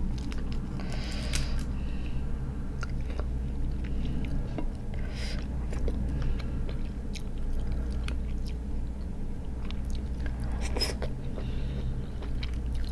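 Cooked crab shell being cracked and picked apart by hand, scattered small clicks and crackles, along with close-up chewing of the crab meat. A steady low hum runs underneath.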